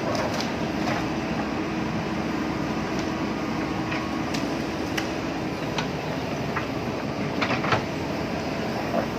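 JCB backhoe loader's diesel engine running steadily while digging, with scattered sharp knocks and clanks from the working machine.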